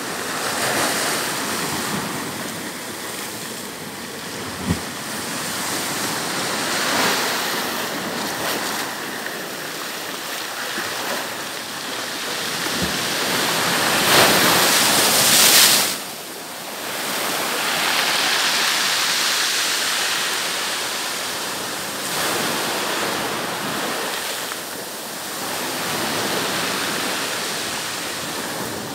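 Sea surf breaking and washing up a sandy beach, a steady rush that swells and ebbs with each wave, loudest about halfway through and then falling away suddenly.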